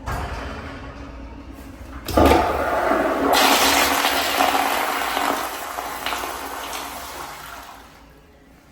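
Toto toilet flushing: a sudden loud rush of water about two seconds in, staying strong for a few seconds, then tailing off near the end.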